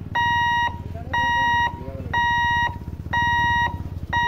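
Level crossing boom barrier's electronic warning buzzer beeping about once a second, each beep a steady high tone lasting about half a second, sounding while the barrier lifts.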